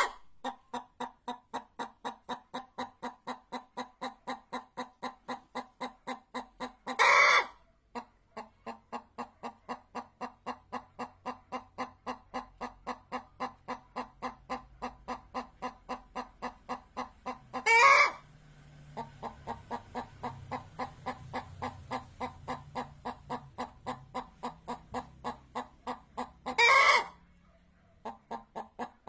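Hens clucking in a steady, even rhythm of about three clucks a second, broken three times by a short, much louder call.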